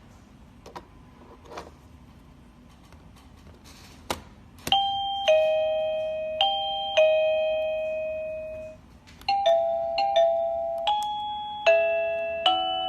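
OnLyee doorbell chime: a sharp click about four seconds in, then the chime plays a ding-dong tune of four ringing notes, high and low in turn. That tune cuts off and a different, quicker melody of ringing notes starts about nine seconds in, as the ringtones are stepped through.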